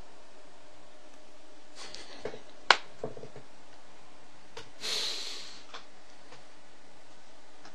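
Steady microphone hiss with a few small clicks a little over two seconds in, one sharp click far louder than the rest. About five seconds in comes a short breath close to the microphone.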